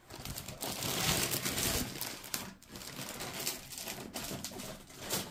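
Plastic packaging crinkling and rustling as it is handled and opened, with small clicks; loudest in the first couple of seconds.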